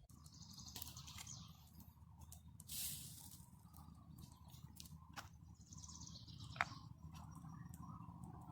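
Faint outdoor ambience with bird calls, scattered sharp clicks and a brief rustle about three seconds in; one louder crack comes near the end.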